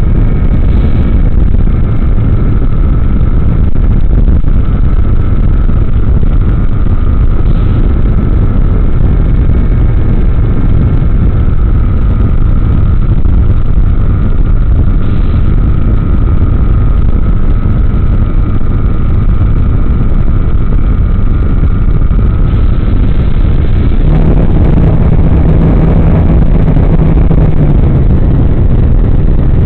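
Heavy wind rush on the RC plane's onboard microphone, over the steady whine of its motor and propeller. About 24 seconds in the whine changes: the high note drops out and a lower hum comes in.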